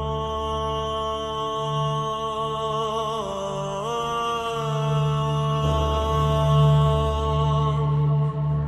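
Instrumental song intro: low, droning chant-like held tones over a deep bass drone and a pulsing low note. The held pitch steps up about four seconds in.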